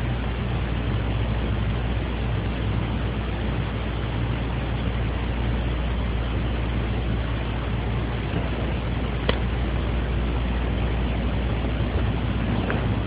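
Steady hiss and low hum of room noise picked up by a phone's voice recorder, with a faint click about nine seconds in.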